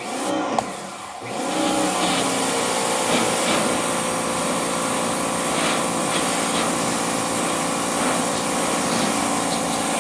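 Ryobi 2000 PSI electric pressure washer running and spraying, its motor hum and water-jet hiss coming up to a steady full level about a second in.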